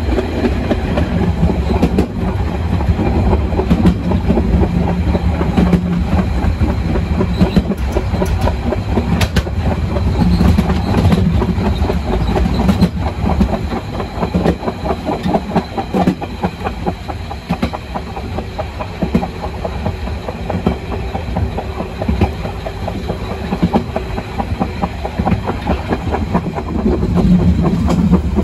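Harz narrow-gauge train running along the line, heard from on board: a steady rumble from the wheels and carriage, with the clickety-clack of wheels over the rail joints.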